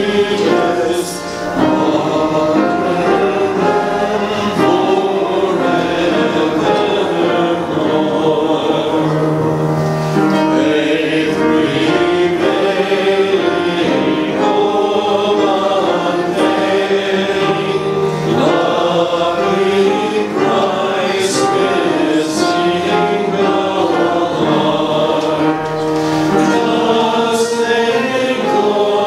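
Church choir singing a sung part of Anglican choral evensong, the voices holding and moving between notes without a break.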